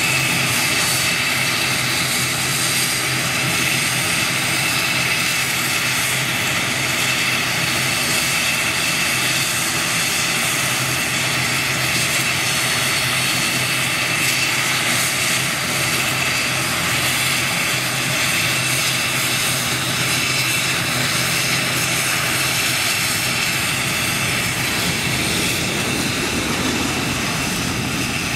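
ATR 72-600 turboprop engines running steadily on the ground, a constant high whine over a low drone. Near the end the sound of a departing jet builds underneath.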